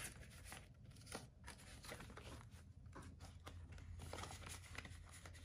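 Faint rustling and soft ticks of paper banknotes and cash envelopes being handled, over a low steady hum.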